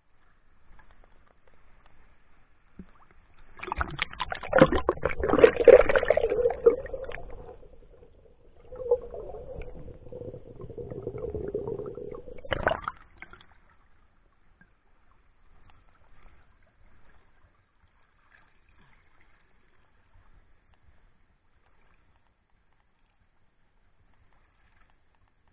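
Creek water sloshing and splashing close to the microphone in two spells of a few seconds each, with a short lull between them; the second spell ends in a sharp knock.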